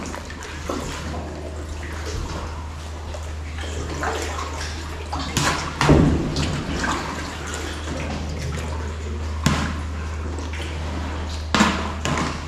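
Sea kayak paddle strokes splashing and water sloshing and lapping against the rock walls of a sea cave, with a few louder splashes, the largest about six seconds in, over a steady low rumble.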